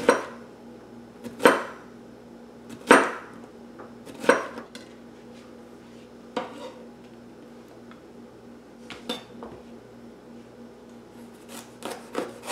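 Chef's knife slicing through cucumber and knocking on a plastic cutting board, then cutting a green bell pepper near the end. Separate sharp knocks about every second and a half, fewer in the middle, and a quick few close together near the end.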